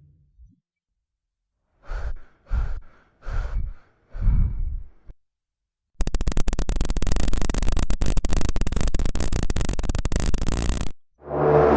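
Horror sound effects: four short breathy exhalations like heavy sighs, then about five seconds of loud, harsh hiss full of crackle that cuts off suddenly.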